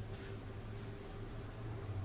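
Quiet workshop room tone: a steady low hum with a faint click or clink about a quarter second in, from metal parts being handled.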